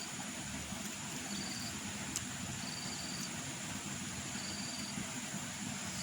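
Insects chirping: short high trills that repeat about every two seconds over a steady high insect drone, with a few sharp clicks.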